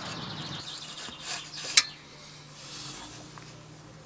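A faint, steady low hum with a single sharp click a little under two seconds in.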